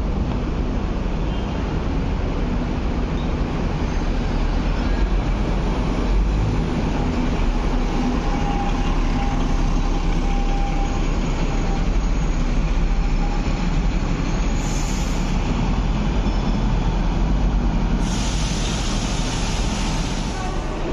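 Steady low rumble of an East Rail Line train running on the tracks overhead, with a faint wheel whine in the middle. A brighter hiss joins near the end.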